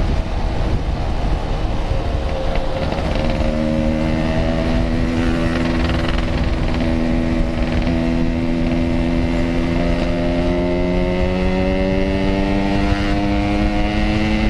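Yamaha RX-King 135cc two-stroke single-cylinder engine running under way. Its pitch holds for the first few seconds, then climbs slowly and steadily as the bike gathers speed.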